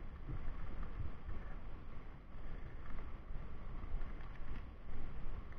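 Wind buffeting the microphone: an uneven low rumble with no clear tones.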